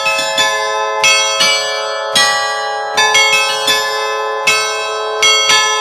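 A 13-bell carillon of fixed bronze bells, tuned in A, played from a wooden baton keyboard: an allegrezza, the traditional festive bell-ringing tune, with single strikes coming about one or two a second and each bell ringing on under the next.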